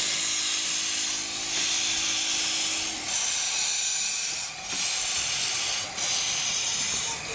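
15-inch gauge 4-6-2 steam locomotive No.7 'Typhoon' moving slowly with loud steam hissing from the cylinder drain cocks. The hiss dips briefly about every one and a half seconds.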